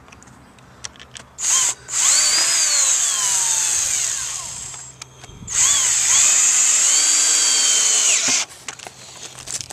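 Power drill with a socket bit driving hex-head screws through a metal fence bracket into a wooden rail. A short blip, then a run of about three seconds whose pitch sinks as the screw draws in under load, and after a brief pause a second run of about three seconds that stops suddenly as the screw seats.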